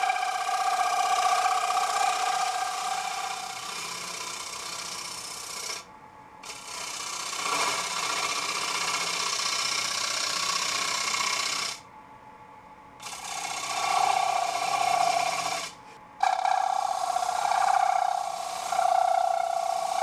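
A gouge cutting a thin, microwave-dried alder plate turning on a wood lathe, the cut squealing with a steady high tone and chattering as the thin piece vibrates. The squeal breaks off briefly three times, about six, twelve and sixteen seconds in.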